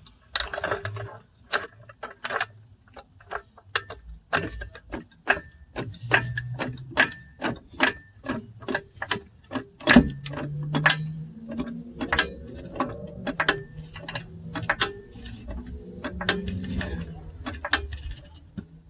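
Car jack being pumped to lift the car under its jacking point: a long run of sharp metallic clicks, about three a second, with one louder knock about halfway through.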